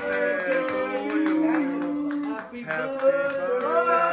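A song with singing voices over music, the melody moving in held notes, with short sharp claps or clicks scattered through it.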